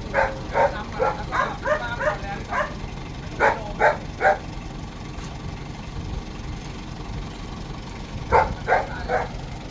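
A dog barking in three runs of short, sharp barks, about two to three a second, over a steady low rumble.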